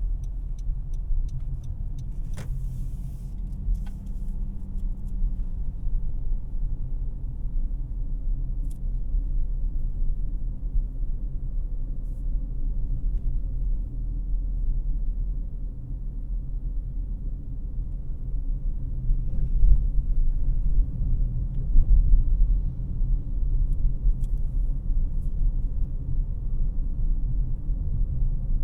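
Cabin noise inside a 2018 Honda CR-V LX on the move: a steady low rumble of road and engine noise, with a single sharp click about two seconds in.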